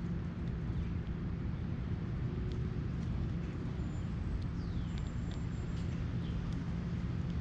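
Steady low rumble with a faint hum, under faint, scattered high bird chirps and one downward-sliding call about halfway through.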